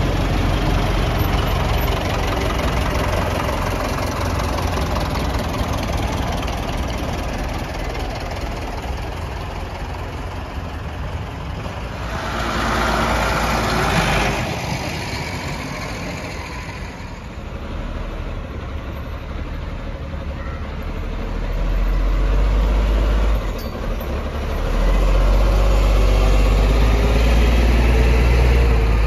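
Diesel farm tractors running as they tow heavy trailers past. One passes close about halfway through, and a deep low engine rumble grows loud near the end.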